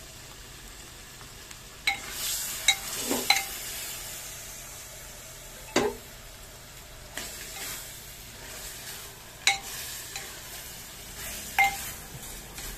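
Chicken pieces sizzling as they fry in a clay pot, stirred with a metal ladle that scrapes through them and clinks against the pot about six times, each clink ringing briefly.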